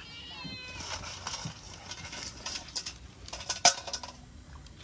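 A short animal cry falling in pitch, followed by rustling and clicking. A sharp knock about three and a half seconds in is the loudest sound.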